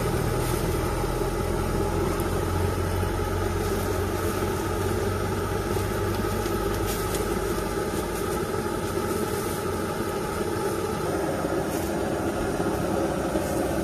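Steady engine hum of an idling motor, even in loudness, its tone stepping down slightly about eleven seconds in.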